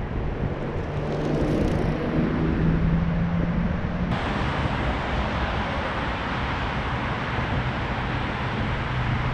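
Steady hum of road traffic. A bicycle rolls close past about a second and a half in. The sound changes abruptly about four seconds in, and a low steady hum carries on after it.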